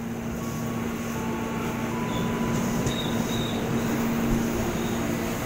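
Ex-JR 205 series electric commuter train pulling into a station platform: a steady rumble of wheels on track under a constant low hum, growing slightly louder as it passes. Brief faint high squeals come about two to three seconds in.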